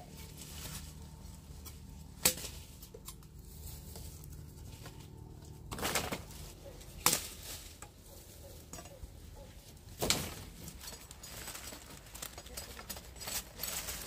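Sugarcane being handled by hand: a few sharp wooden knocks of cane stalks, with dry rustling of cane leaves and small ticks between them.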